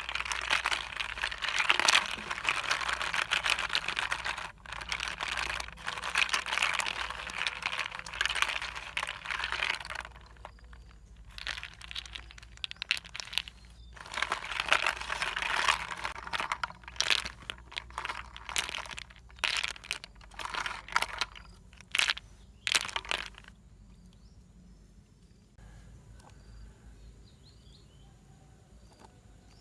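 Dense crinkling and crunching handling noise that thins to scattered sharp crackles after about ten seconds, then dies down to quiet about two-thirds of the way through.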